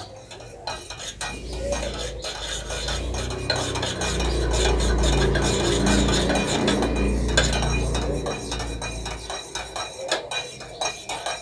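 Metal spoon stirring chicken in a metal pot, with many quick scrapes and clinks against the pot's sides. A low hum underneath swells through the middle and fades near the end.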